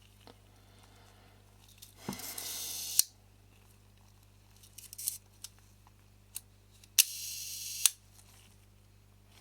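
Two puffs of air from a hand air blower, each about a second of hiss ending in a sharp click, a couple of seconds in and again about seven seconds in, with light clicks of small lens parts being handled between them.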